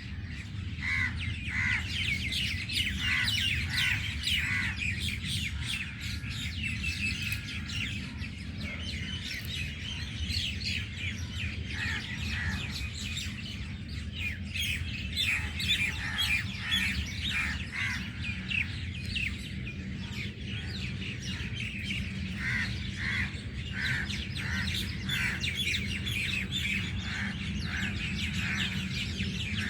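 Dense chorus of many birds chirping and calling at once, short overlapping calls with no pause, over a steady low hum.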